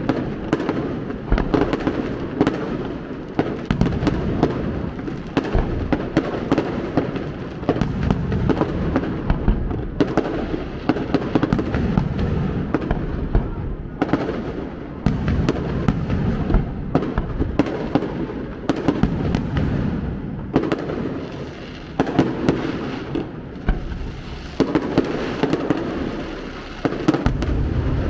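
Fireworks display: aerial shells bursting in quick succession, many sharp bangs over a continuous low rumble.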